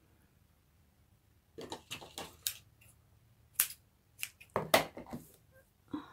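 Scissors trimming the ends of a linen-thread bow: a series of short, sharp snips and clicks, starting about one and a half seconds in.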